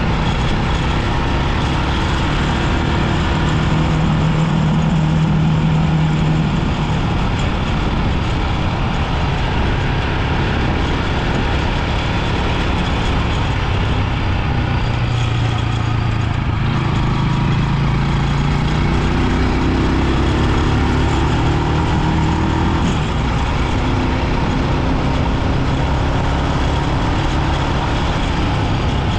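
Rusi 250 motorcycle engine running on the move, its note shifting lower and higher several times as the speed changes, over a steady rush of wind and road noise.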